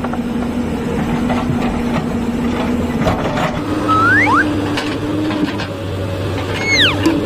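Hyundai crawler excavator working a slope: diesel engine and hydraulics running with a steady hum that steps up in pitch about halfway through, with scattered light knocks of the bucket in the soil. Short squeals sweep in pitch near the middle and again near the end.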